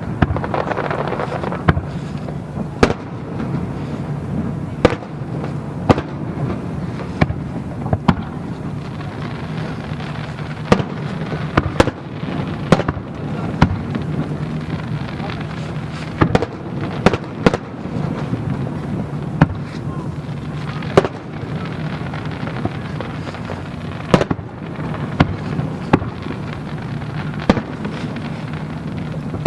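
Aerial fireworks shells bursting in an irregular series of sharp bangs, some in quick clusters, over a continuous background din.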